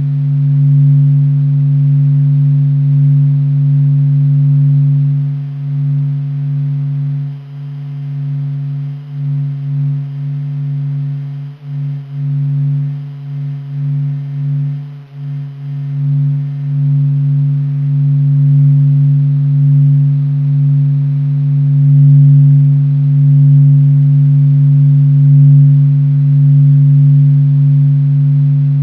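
Low, steady hum with a fainter tone above it, wavering and dipping in level between about six and sixteen seconds in: NASA's sonification of the sun's surface vibrations.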